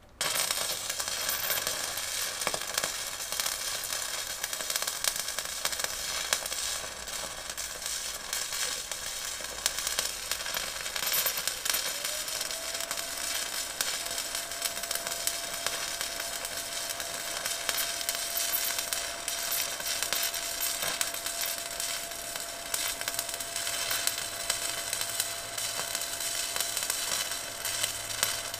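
Electric arc welding: the arc strikes at the start and runs on as a steady crackling sizzle. A faint steady high whine joins about twelve seconds in.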